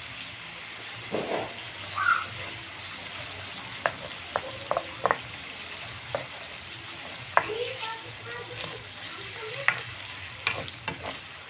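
Pork and garlic sizzling in a wok with a steady hiss while a spatula stirs them. Sharp clicks and scrapes come as the spatula knocks against the wok, several times in the second half.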